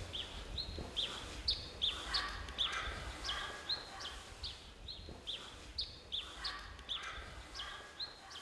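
A bird calling over and over in short high chirps, about two a second, each dropping quickly in pitch.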